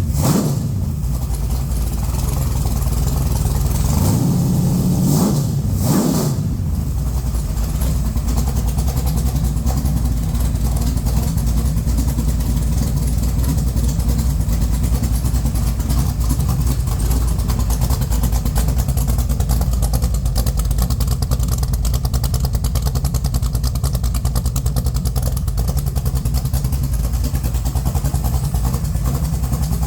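Freshly built Mopar small-block 408 stroker with a hydraulic roller cam, running on an engine stand through Cherry Bomb mufflers on its break-in run. It idles low, around 650 to 700 rpm. It is revved up and back down briefly at the start and again about four to six seconds in, then settles back to a steady idle.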